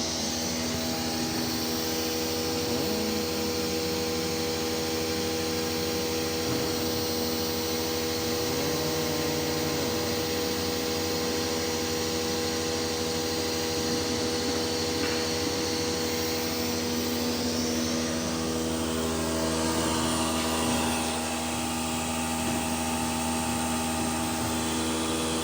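CNC machine running under a Newker controller: a steady motor hum and whine with several held tones, and fainter tones that rise and fall a few times as the axis motors speed up and slow down.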